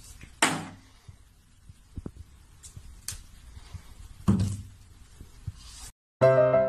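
Toiletry bottles swatted off a bathroom shelf by a cat, landing with two loud clattering thuds about four seconds apart, with a few lighter knocks between. Piano music starts right at the end.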